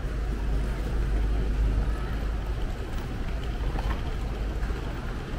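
Street ambience by a bus stop: a steady low rumble of idling double-decker buses and passing traffic.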